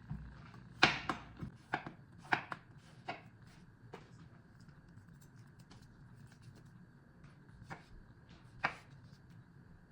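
Kitchen knife cutting zucchini and knocking against a cutting board: a quick run of sharp, irregular chops in the first few seconds, then two more near the end.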